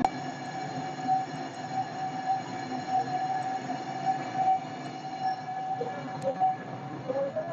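Brake lathe cutting a Toyota Fortuner brake disc, the tool running steadily against the turning disc with a held ringing tone. The disc is being skimmed to true a warped rotor, the cause of the car's shuddering under braking.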